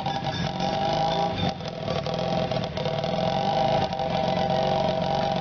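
A motor vehicle's engine running steadily, with a constant hum.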